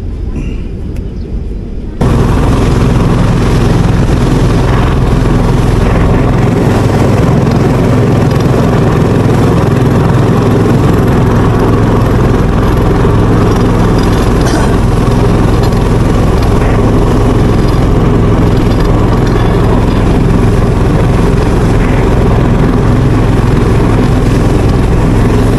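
A small motorboat's engine running loud and steady at speed, with water rushing along the hull. It starts abruptly about two seconds in, after a quieter start.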